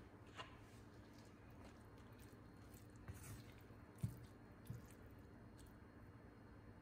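Silicone spatula stirring cooked diced chicken in an enamelled cast-iron pan: faint squishing with a few soft knocks, the loudest about four seconds in.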